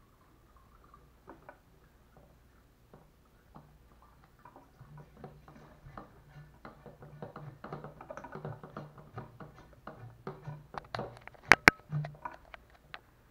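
Plastic hand siphon pump with red accordion bellows squeezed over and over to move fuel into a mini bike's gas tank: a run of light plastic clicks and creaks that gets busier partway through, with two sharp clacks near the end.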